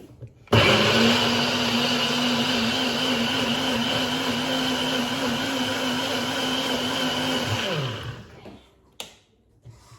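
NutriBullet blender starting abruptly and running at a steady pitch for about seven seconds, pureeing pineapple pieces into juice, then winding down with a falling pitch as it is switched off.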